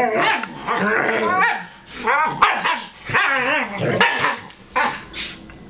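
Two dogs play-fighting, vocalizing in a run of short yowls, grumbles and barks that slide up and down in pitch, coming in bursts about once a second and stopping shortly before the end.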